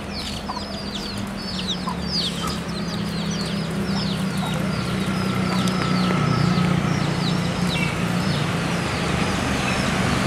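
Diesel engine of an Isuzu Giga truck hauling a shipping container, a steady low drone growing louder as it approaches. Over it a bird gives rapid, repeated short high chirps, about three a second, which die away about two-thirds of the way through.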